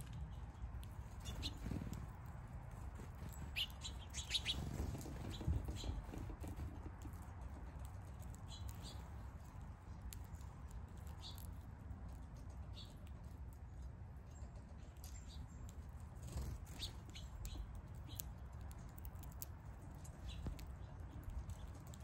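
Small songbirds at a seed feeder chirping now and then: scattered short, high chirps and light clicks, over a low background rumble.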